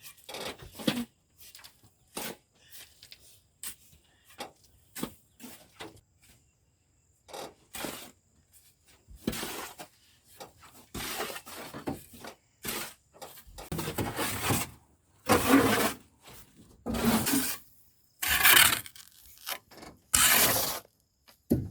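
Shovels scraping into sand and throwing it, in repeated gritty strokes. The strokes grow louder and come about every one and a half to two seconds in the second half.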